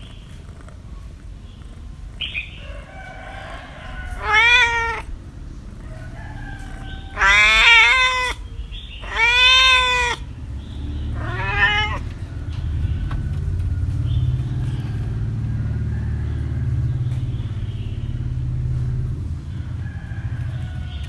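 A cat meowing four times, each meow rising then falling in pitch, the second and third loudest and longest. A low steady rumble runs underneath and gets stronger after the last meow.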